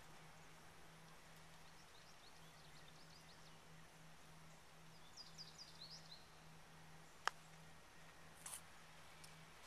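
Quiet outdoor background with faint bird chirps, then a single sharp click of a golf club striking the ball on a chip shot about seven seconds in.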